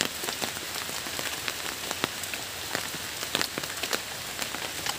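Steady rain falling on the leaves of trees, an even hiss dotted with many sharp drops.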